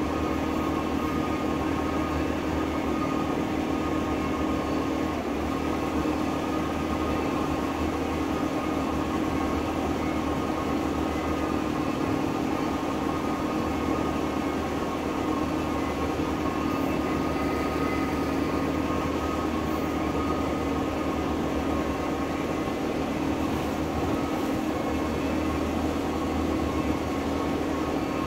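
Parasail boat's engine idling steadily while it warms up toward about 150 degrees; an even, unchanging hum.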